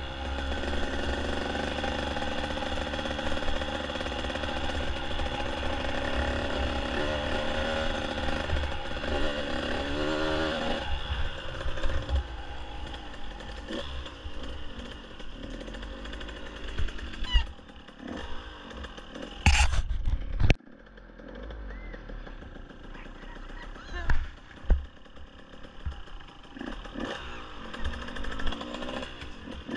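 Dirt bike engine running under steady throttle, heard from an onboard camera with wind on the microphone. About eleven seconds in the engine eases off, and the second half has a few loud knocks from bumps over the trail.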